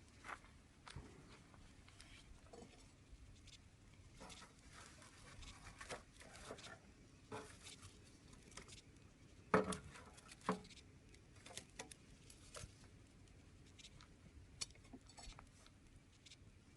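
Wood campfire crackling faintly, with scattered irregular pops and snaps; the sharpest pops come about nine and a half and ten and a half seconds in.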